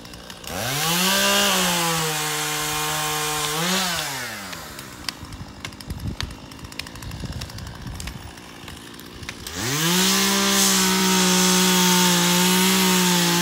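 Two-stroke chainsaw revving up to high speed and held there for a few seconds, then dropping back. After a quieter stretch with light clicks it revs up again near the end and holds steady. It is running on a 100:1 gas-oil mix, half the usual oil.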